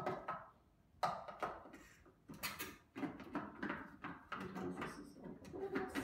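A series of light clicks and knocks from handling a food processor's plastic bowl and lid.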